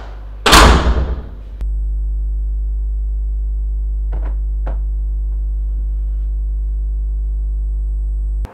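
A door slams shut about half a second in, followed by a steady held musical drone, one unchanging chord, that cuts off suddenly near the end. About halfway through there are two light knocks as a ceramic bowl is set down on a desk.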